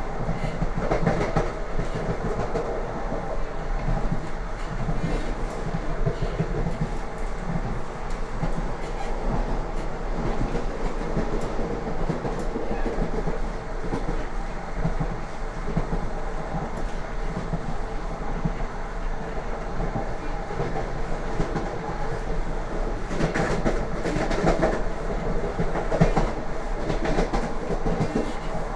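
Wheel clatter of a Lastochka (Siemens Desiro RUS) electric train running along the line: a steady rolling rumble with rhythmic clickety-clack as the wheels cross rail joints, growing louder for a few seconds near the end.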